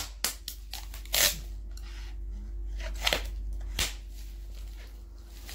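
Plastic film around a cardboard carton being handled and pressed: scattered crinkling and rustling, with a few sharp crackles.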